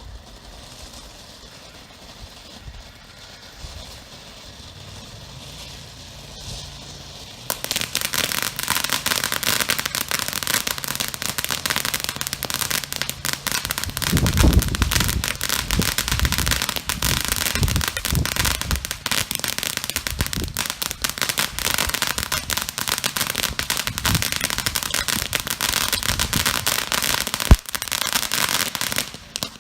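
Small consumer fountain firework (Showtime Cupid's Crush) erupting about seven seconds in, with a steady, dense crackling hiss from its silver crackle effects that runs until it cuts off just before the end. A few heavier thuds come midway, and a single sharp crack near the end.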